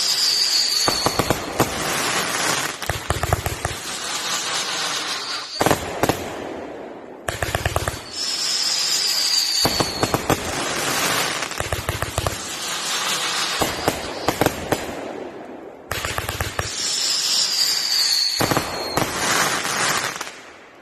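Brothers Pyrotechnics Shotgun Wedding 500g firework cake firing. Each shot starts with a falling whistle, followed by rapid sharp bangs and crackling breaks. The same sequence of about eight seconds repeats three times.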